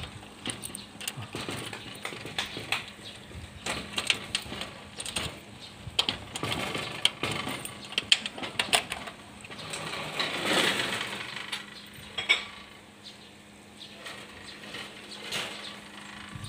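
Metallic clicks, knocks and rattles from an aluminum sliding screen door and its lock hardware being handled, with a scatter of sharp clinks throughout.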